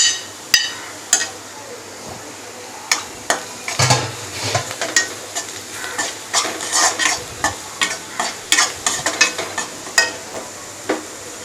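A spoon stirring a frying onion and spice masala in a pan, scraping and clicking against the pan many times over a steady sizzle. A short metallic clink rings out right at the start.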